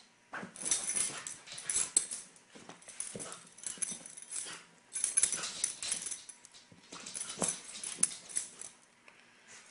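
A beagle playing rough with a kitten on a blanket: irregular scuffling and rustling with the dog's snuffling breaths, in short bursts throughout.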